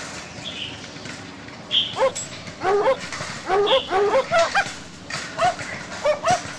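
Small dog giving a rapid series of short, high yips, starting about two seconds in and coming in quick clusters.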